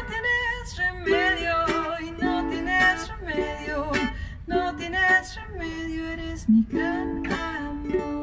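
Ukulele strummed and picked through the instrumental close of a song, a chord stroke about every second, the last chords ringing out and fading near the end.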